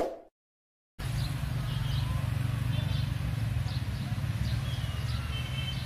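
A short chime dying away right at the start, then from about a second in a steady low rumble of a diesel train still far off down the track. Birds chirp over it now and then.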